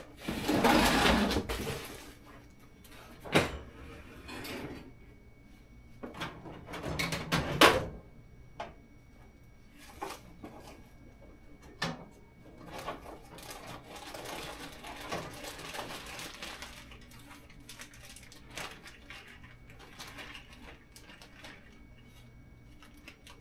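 Rummaging through workbench storage for heat-shrink tubing and a heat gun: a loud rustle near the start, sharp clacks of objects knocked and set down about three and seven seconds in, then a longer stretch of rustling with scattered small clicks.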